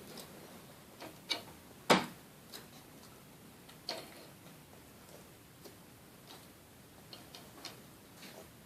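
Sparse soft clicks and taps at irregular intervals, the loudest a sharp knock about two seconds in.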